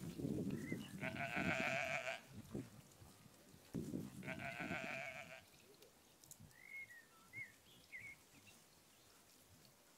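Sheep bleating: two wavering calls, each about a second long, the second about three seconds after the first.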